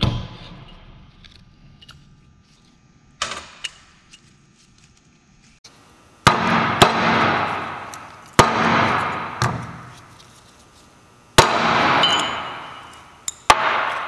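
Sharp metal knocks on a steel-topped workbench as a Jaguar output shaft assembly and its parts are handled and set down, each knock ringing on and dying away over a second or so. Two small knocks come first, then about six louder ones in the second half.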